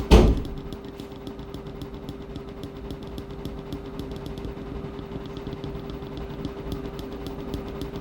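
Washing machine running: a steady motor hum with a constant tone and a low rumble, plus faint repeated ticking. A single loud thump comes right at the start.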